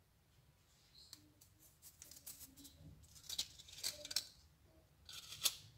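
Faint paper crinkling and small crackling clicks as a chocolate-coated coconut ball is peeled off parchment paper by hand and the set chocolate drips around its base are broken away.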